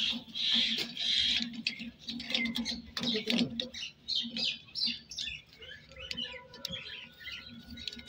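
Small birds chirping repeatedly in quick, varied notes over a low, steady hum.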